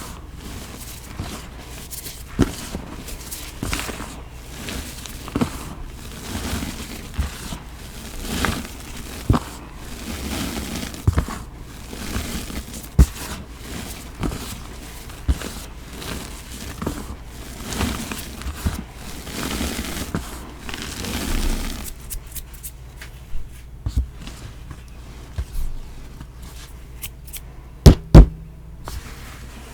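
Soft pressed blocks of Bon Ami cleaning powder being crushed and crumbled by hand: dry, powdery crunching with frequent small clicks. A little past two-thirds of the way through the crunching stops, leaving scattered taps and then two loud knocks close together near the end.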